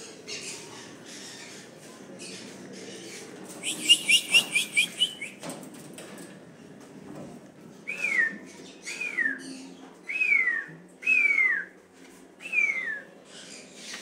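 Pet parrots calling: faint chirping, then a quick rattling run of about seven high notes around four seconds in, followed by five loud calls that each slide downward in pitch, roughly one a second.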